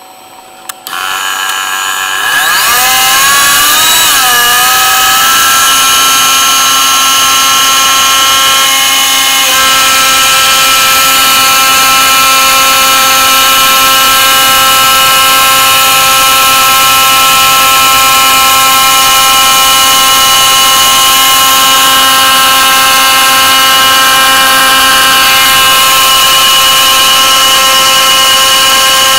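Proxxon MF 70 mini mill's spindle motor starting about a second in and spinning up with a rising, wavering whine, then running at a steady high whine as the CNC-driven end mill cuts through thin aluminium beer-can sheet.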